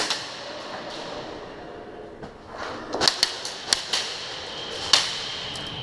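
Airsoft guns firing, each shot a sharp crack: one right at the start, a quick cluster of about five about three seconds in, and one more near the five-second mark.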